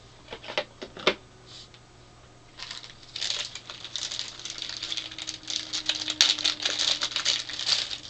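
A few sharp clicks, then from about two and a half seconds in, a dense, irregular crinkling of a clear plastic bag being handled.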